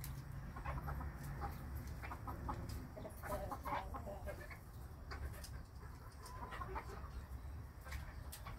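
Broody Old English Game bantam hens clucking in short, repeated calls as they peck at feed, with small sharp taps mixed in and a steady low hum underneath.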